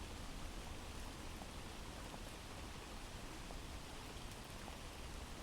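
Recorded rain ambience: a soft, steady patter of rain.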